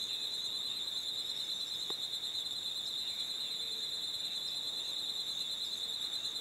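A steady, high-pitched insect trill with a fine rapid pulse, with faint bird chirps here and there.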